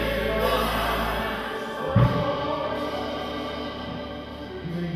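Choir singing gospel music, a dense sustained chorus of voices, with one brief low thump about two seconds in. It grows gradually quieter.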